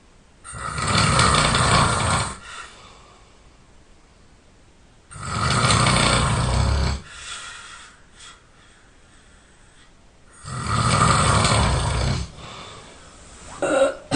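A sleeping person snoring loudly: three long snores, each about two seconds, coming about every five seconds.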